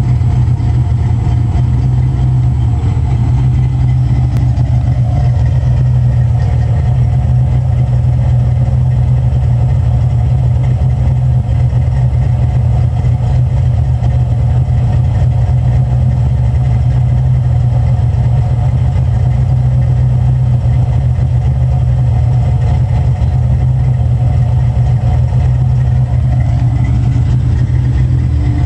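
A 1991 Ford Mustang 5.0's 302 V8, with GT40 heads and an F303 cam, idling steadily through its exhaust. It is running untuned on newly fitted 24 lb injectors with the stock mass airflow sensor.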